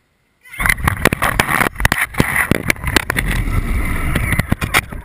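Loud rattle and rumble of an RC monster truck heard from a camera mounted on it, with its motor and tyres straining against the tow rope, and many sharp knocks and clatters as the truck tumbles over. It starts about half a second in and drops away near the end.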